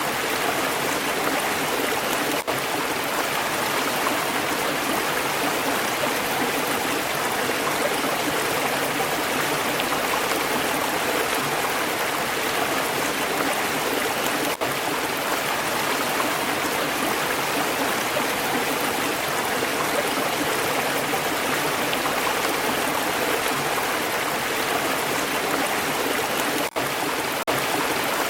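Flowing stream water running steadily. The sound drops out for an instant about two and a half seconds in, again about midway, and twice near the end.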